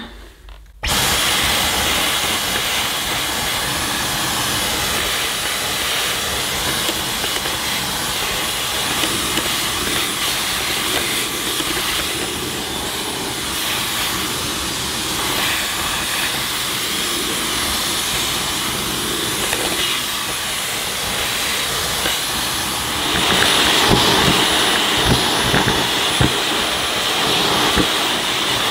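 Dyson V11 cordless stick vacuum switching on about a second in and running steadily with a crevice tool, sucking dust out of an old vacuum cleaner's base. It gets louder and brighter for the last few seconds, with a few low knocks of the nozzle against the parts.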